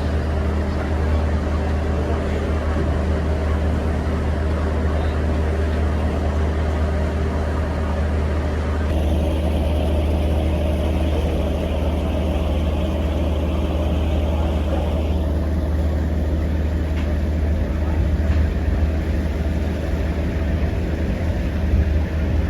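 River ferry's engine running steadily underway, a deep, even drone with a rushing hiss above it.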